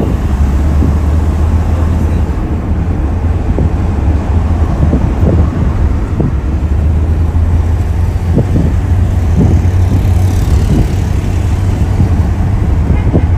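Steady low rumble of tyre and engine noise inside a car's cabin while it cruises along a highway.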